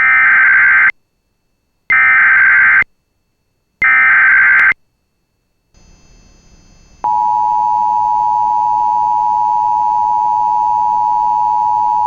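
Emergency Alert System header: three short bursts of warbling digital data tones about two seconds apart, the coded header that announces a Child Abduction Emergency. After a pause and faint hiss, the steady EAS attention tone starts about seven seconds in.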